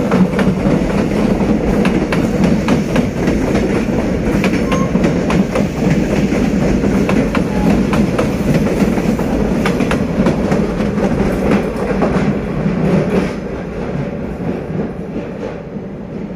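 Passenger train coaches rolling past close by, wheels clicking over rail joints with a steady rumble. The sound fades away over the last few seconds as the end of the train moves off.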